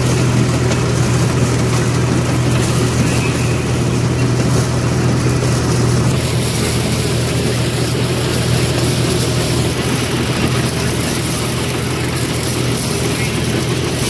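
John Deere tractor engine and its tractor-mounted maize harvester running steadily while harvesting corn, a loud constant drone with a strong low hum.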